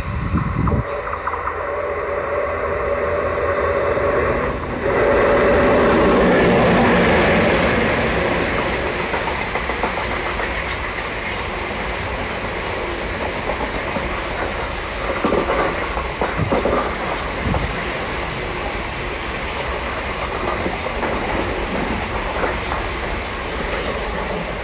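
Renfe Tren Hotel passenger train passing at speed. The loudest moment is the locomotive going by about five seconds in. A long steady rush of the coaches rolling on the rails follows, with a few clicks of wheels over rail joints midway.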